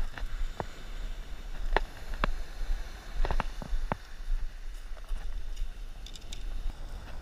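Beach pebbles knocking and clacking underfoot: a handful of sharp, irregular clicks over the first four seconds, with a steady low rumble of wind on the microphone.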